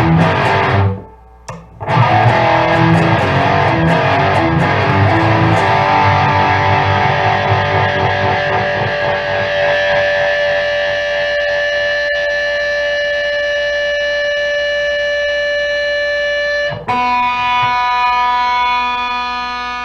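Harley Benton DC electric guitar with a sustainer pickup, played distorted through effects. A few seconds of picked notes are followed by one note held and ringing on without dying away for about ten seconds. A new note is struck about 17 seconds in and also rings on steadily.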